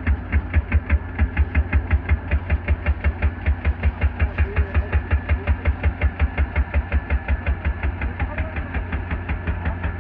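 Hydraulic breaker hammer on a mini excavator pounding concrete: a fast, even run of blows, about six a second, over the machine's running engine. It starts suddenly and grows weaker near the end.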